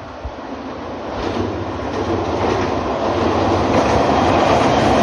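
Nagano Electric Railway local train approaching, its wheels rumbling on the rails and growing steadily louder.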